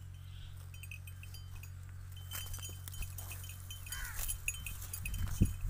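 Birds chirping in short, high repeated notes over a steady low hum, with a couple of loud low thumps near the end.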